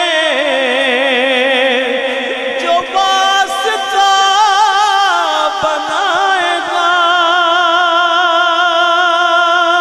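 A man singing naat-style devotional verse, drawing out long ornamented notes that waver and glide for the first few seconds, then holding one steady note from about seven seconds in.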